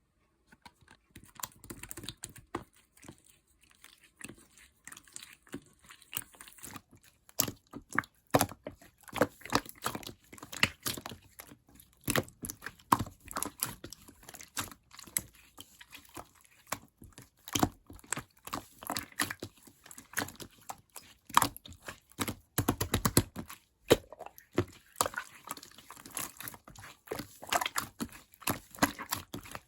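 Clear slime being mixed and worked by hand: a dense, uneven run of sticky clicks and crackles that starts about a second in.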